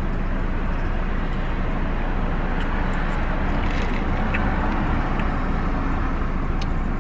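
Steady low rumble and hiss inside a parked car.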